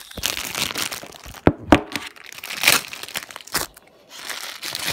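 Clear plastic packaging crinkling and rustling as it is handled and opened, with a few sharp clicks in between.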